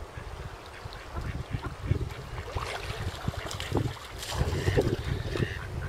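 Wind buffeting the microphone in gusts, a low rumble that grows stronger about halfway through, with scattered short crackles above it.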